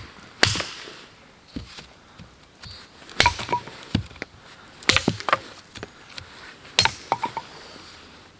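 Billhook blade chopping down a thin wooden pole, trimming it: a series of sharp strikes at uneven intervals, several in quick clusters, some followed by a brief ring.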